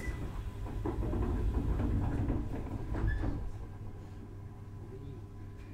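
Inside a JR East 701 series electric train: a steady low rumble with scattered knocks and rattles, easing off after about three and a half seconds.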